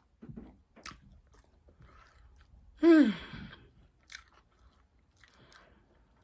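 A person chewing and biting food close to the microphone, with soft wet mouth clicks. About three seconds in comes one short, louder vocal sound from the eater, falling in pitch.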